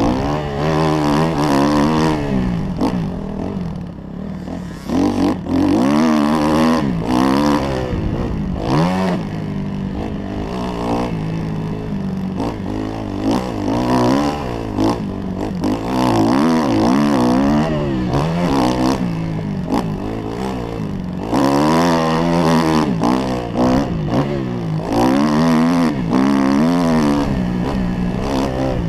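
Kawasaki KX 250F four-stroke single-cylinder motocross engine running hard, heard close up from the bike. Its pitch climbs and drops again and again as the throttle opens and closes and the gears change.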